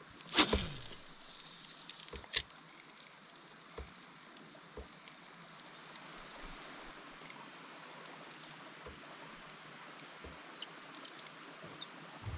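Faint water sounds around a canoe on a lake, broken by a loud sudden hit about half a second in, a second sharp click a couple of seconds later, and a few light knocks.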